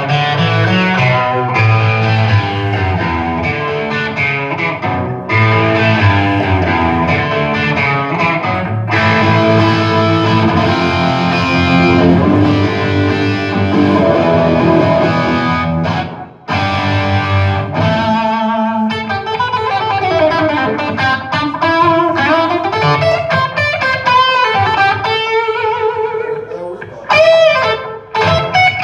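Rock band playing live: electric guitar chords over a strong bass line, with a brief break about 16 seconds in, after which a melodic lead line with bending notes takes over.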